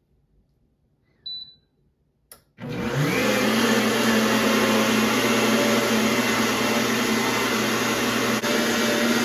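Countertop blender with water and soap in the jar, being test-run. A short beep comes about a second in and a click a second later. Then the motor starts about two and a half seconds in, spins up with a quick rise in pitch, and runs loud and steady.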